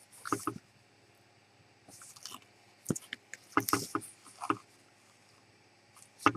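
Small clicks and brief scraping sounds from a miniature 2mm pinfire rifle being handled and worked, in irregular bursts, with one sharp loud click near the end.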